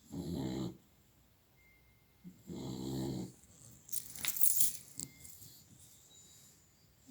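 A sleeping dog snoring loudly, two long rasping snores about two and a half seconds apart. A brief high rattling noise comes about four seconds in.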